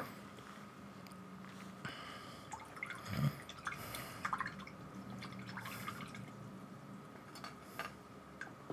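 Paintbrush being rinsed in a water pot: small splashes and drips with light clicks, and a soft knock about three seconds in.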